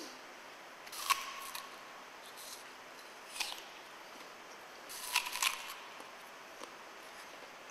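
Crisp crunching clicks of a raw apple being bitten and chewed, in three short clusters about two seconds apart, over a faint steady hiss.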